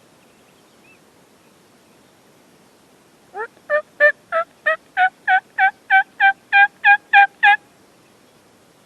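A run of about fourteen turkey yelps, about three a second, getting louder as the run goes on; the first yelp rises in pitch. It is the hen yelp sequence that turkey hunters use to bring in gobblers.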